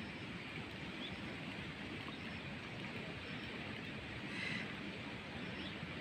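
Steady outdoor ambience: a low hum with hiss, and a few faint high chirps, one louder about four and a half seconds in.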